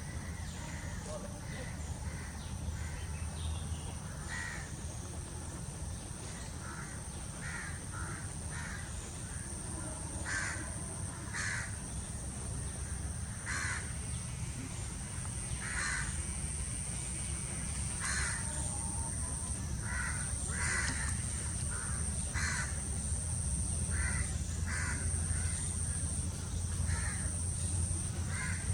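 Crows cawing over and over, short separate calls every second or two. Under them run a steady high-pitched whine and a low rumble.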